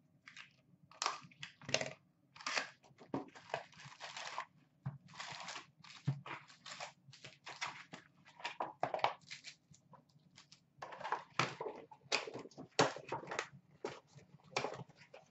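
A cardboard hockey-card hobby box is torn open and its wrapped card packs are pulled out and stacked, making irregular bursts of crinkling, tearing and rustling.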